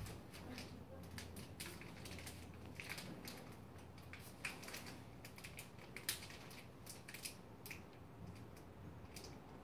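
Faint, irregular small clicks and rustles of gloved hands handling products and tools on a treatment cart, with a couple of sharper clicks midway, over a low steady hum.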